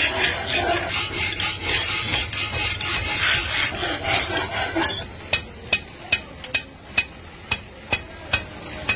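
A hand file rasping back and forth over a cast aluminium pan handle. About five seconds in this gives way to a regular run of sharp clicks, about two a second, as the handle is worked on a bench machine.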